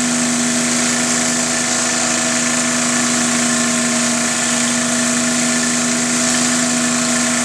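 Troy-Bilt 2700 PSI pressure washer's engine running steadily under load, with a high hiss of water spraying from a rotating surface cleaner onto concrete.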